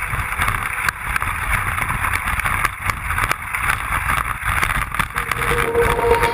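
Wooden sledge runners sliding fast over packed snow: a steady hiss with a low rumble from the bumps in the track, mixed with wind on the microphone.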